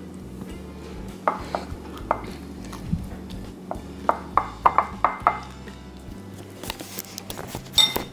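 A utensil clicking and scraping against a peanut butter jar and a bowl of food as peanut butter is served, with a quick run of taps about four to five seconds in. Background music plays underneath.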